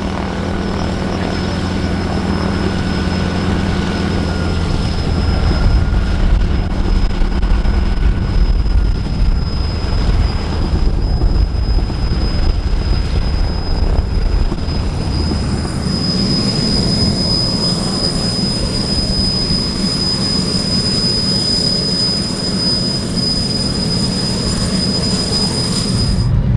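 A T-6 Texan/Harvard's Pratt & Whitney R-1340 Wasp radial engine running with a deep, rough rumble. About sixteen seconds in, the Alouette II helicopter's turboshaft takes over with a steady high-pitched turbine whine. The whine cuts off abruptly near the end.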